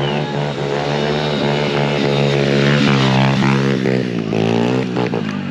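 Motorcycle engine running at high revs, its pitch swooping up and down twice in the second half as the throttle is worked during stunt riding.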